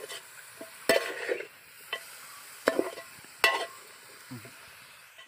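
Metal spoon stirring chicken pieces through masala in a metal pot, scraping the bottom and knocking sharply against the pot three times, over a faint sizzle from the pot on the fire.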